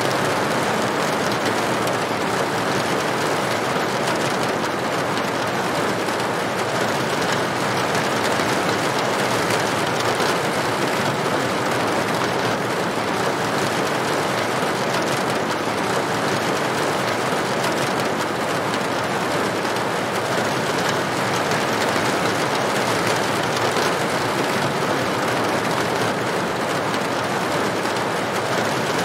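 Steady rain falling on a tin roof, an even, unbroken patter.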